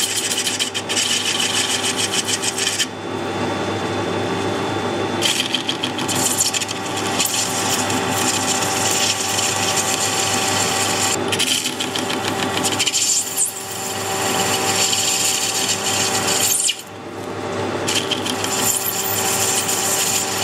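Metal lathe cutting hardened bearing steel with a chipped indexable insert: a harsh scraping cut over the lathe's steady running hum. The scraping drops away briefly about three seconds in and again near the end. The steel is so hard that it is barely machinable and the tool tip is being ruined.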